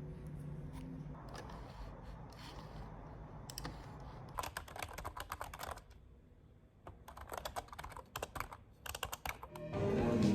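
Typing on a computer keyboard in short bursts of quick key clicks, over a low steady hum. Music comes in near the end.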